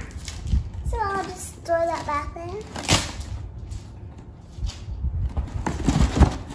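A young girl vocalizing in a short sing-song run of notes without words, while a cardboard box is handled with knocks and rustles. The sharpest knocks come about three seconds in and near the end.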